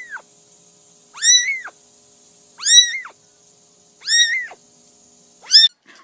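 A cat meowing, four short meows about a second and a half apart, each rising and then falling in pitch; the last one is the shortest.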